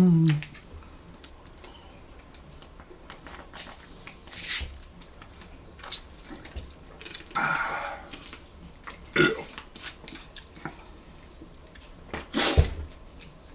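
Two people drinking sparkling water from plastic bottles: a short fizzing hiss as a cap comes off, then scattered swallows, lip smacks and small clicks and knocks of bottle and cap.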